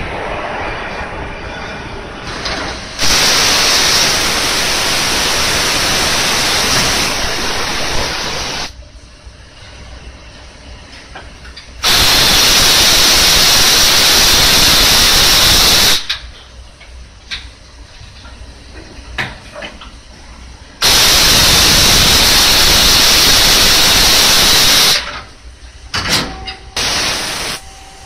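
KIRA KN40Vb vertical machining center blowing a loud hissing spray three times, each blast lasting four to six seconds and starting and stopping abruptly. Between the blasts come quieter machine running noise and a few sharp clicks of the mechanism.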